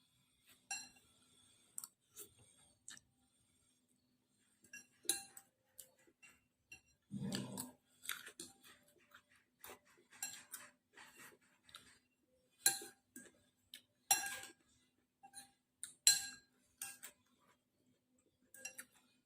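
Spoon and fork clinking and scraping against a bowl of boiled instant noodles, with eating noises in irregular short clicks. There is one longer, deeper noise about seven seconds in, and a faint steady hum underneath.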